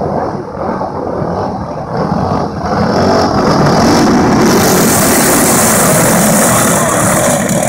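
A pack of flathead-engine racing karts running hard past at close range. The engine noise builds about three seconds in and stays loud as they go by.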